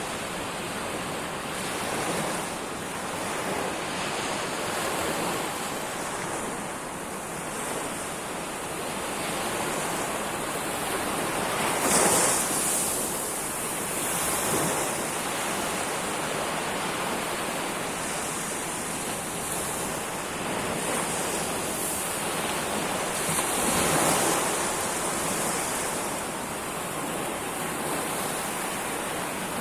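Sea waves breaking and washing up on a shore: a steady surf hiss that swells and falls, with two louder breaks about twelve seconds apart.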